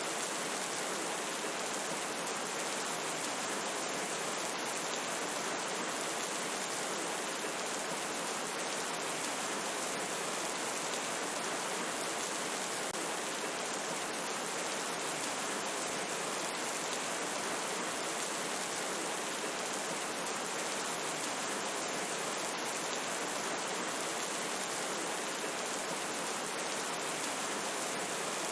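Steady rain: an even, unbroken hiss of falling rain with no change in strength.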